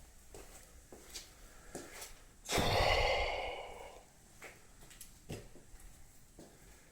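A person sighing heavily once, a long breathy exhale about two and a half seconds in that fades out, with a few faint clicks around it.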